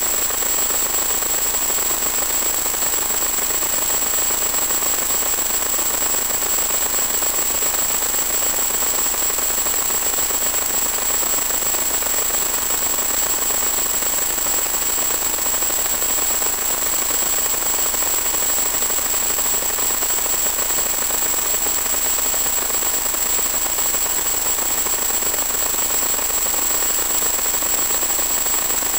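Steady radio hiss with a constant thin high whine, unchanging throughout: the audio channel of the analog 1.2 GHz FPV video link carrying static rather than motor or propeller sound.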